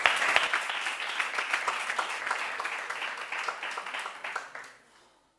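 Audience applauding: many hands clapping, thinning out and dying away near the end.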